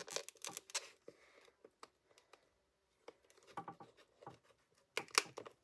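Hands working at a small plastic package, trying to pry it open: scattered light clicks and taps of plastic, with a quiet stretch in the middle and a few sharper clicks near the end.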